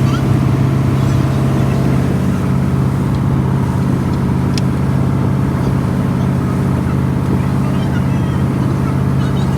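An engine running steadily, a constant low hum with overtones at even loudness.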